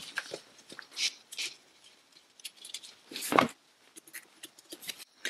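Scattered light clicks, taps and rustles of hands handling a gasket and parts on top of a car gearbox, with one louder knock a little after three seconds in.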